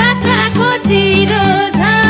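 Nepali dohori folk music: a bending melody line over a steady, rhythmic accompaniment.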